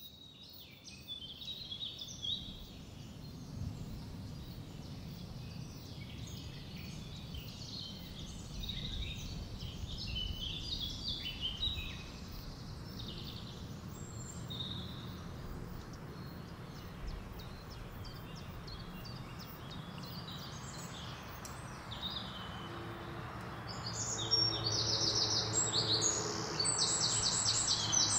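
Small birds chirping and calling over a low steady outdoor rumble. From about 23 seconds in, a carpenter bee buzzes close by in a low drone, together with a fast, high-pitched trill.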